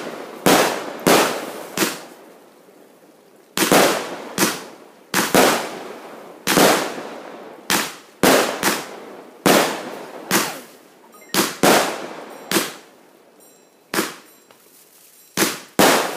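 A box of consumer aerial fireworks (a cake) firing its shots one after another: about twenty sharp bangs, one every half second to a second, each followed by a fading hiss, with a short pause about two seconds in.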